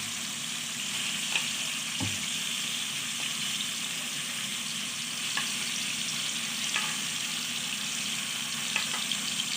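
Cubed chicken breast frying in a pan: a steady sizzle, with a few faint clicks of a utensil against the pan.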